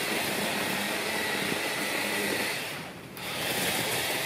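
Milwaukee M12 Hatchet battery pruning chainsaw running as it cuts brush, a steady electric-motor whine. It stops briefly about three seconds in, then runs again.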